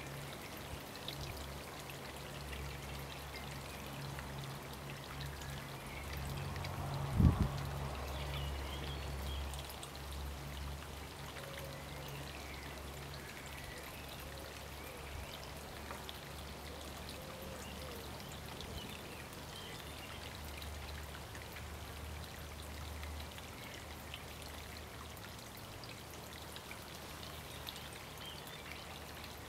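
Steady trickle of running water with a low hum underneath, and one loud thump about seven seconds in.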